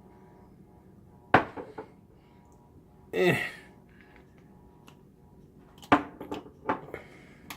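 Knocks and clinks of small hard objects being handled: one sharp knock, a few lighter taps, then a cluster of clicks near the end. A brief voice sound comes about three seconds in.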